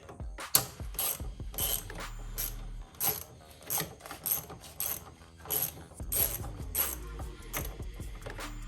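Ratchet wrench clicking in short bursts, about one or two a second, as a bolt on the brake pedal linkage is worked loose.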